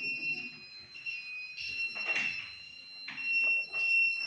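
Electronic buzzer in a simple student-built circuit sounding a steady, high-pitched tone that cuts out and comes back a few times.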